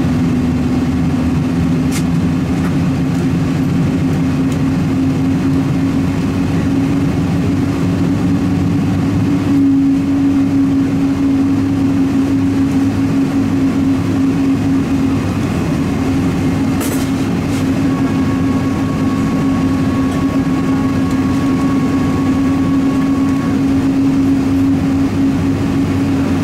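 Boeing 777-200's Pratt & Whitney PW4077 turbofan engine starting and spooling up, heard from inside the passenger cabin: a steady loud drone with a hum whose pitch steps up about ten seconds in. A thin higher whine comes in about two-thirds of the way through and drops out a few seconds later.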